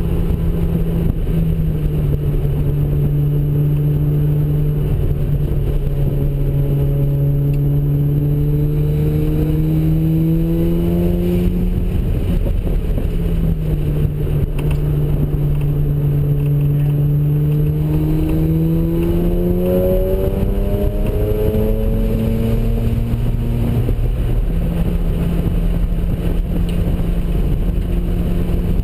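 Turbocharged Mazda RX-7 twin-rotor rotary engine pulling hard on a race track, its note climbing slowly under load. The pitch drops back about twelve seconds in and climbs again, then drops once more near the end.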